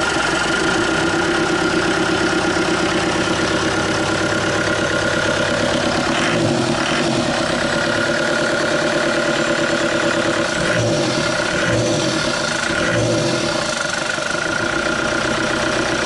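Turbocharged engine idling steadily in an open engine bay, with a few brief louder moments midway.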